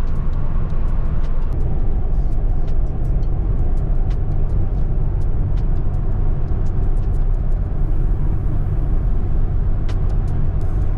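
Pickup truck cruising at highway speed, heard from inside the cab: a steady low rumble of tyre, road and engine noise, with scattered faint clicks.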